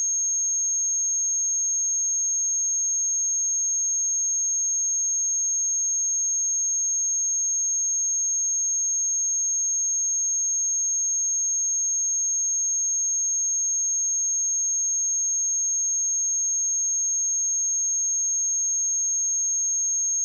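A steady, unbroken pure sine tone at 6485 Hz, a high-pitched whistle-like test tone for checking speakers or headphones.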